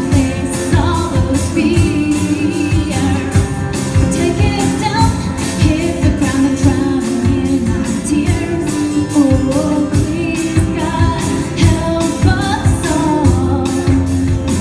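A song with sung vocals over a steady drum beat.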